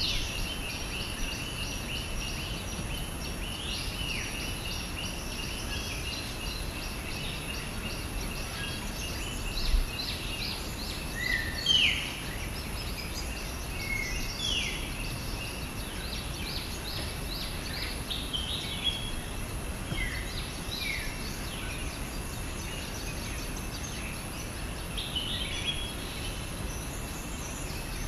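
Forest ambience: birds calling now and then with short falling whistles, over a steady high insect drone.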